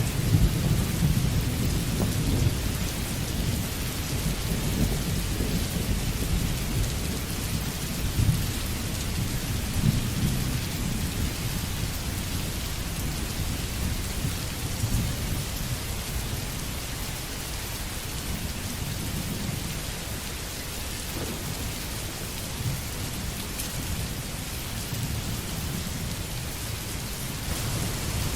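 Steady rain falling with low rolling thunder, the rumbles heaviest in the first ten seconds or so and easing off later.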